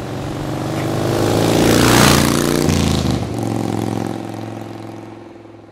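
A motorcycle drives past. Its engine note swells to a peak about two seconds in, drops in pitch as it goes by, and fades away.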